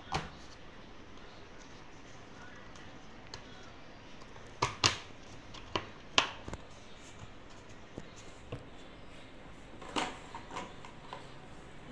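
Hollow plastic rack parts clacking and knocking as the legs are pushed into the shelf frames' sockets during assembly: scattered sharp clacks, the loudest bunched together in the middle and a few more near the end.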